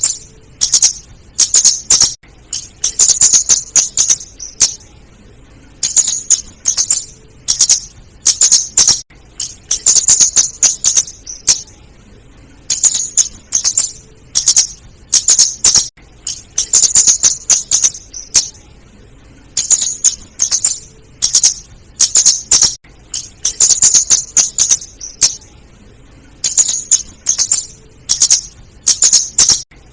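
Female kemade flowerpecker (cabe-cabean) calling: rapid, very high, sharp ticking chips in short bursts, repeated every second or two. It is a recording of the kind played as a lure call.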